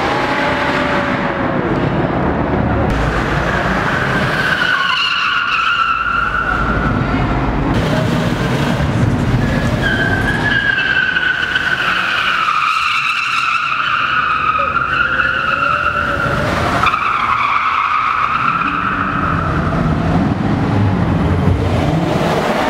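Car doing donuts: tyres squealing in long, wavering screeches several seconds at a time over the engine held at high revs.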